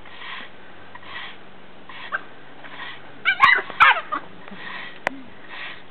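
A 4–5-week-old Nova Scotia duck tolling retriever puppy gives two short, squeaky yelps about three and a half seconds in, with a few sharp clicks. Under them a broom makes soft, regular swishes, a little more than one a second.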